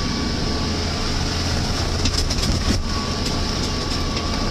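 Car cabin noise while driving over the frozen lake: a steady low drone of engine and tyres with a hiss, and a run of rattles and clatters from the body about two seconds in.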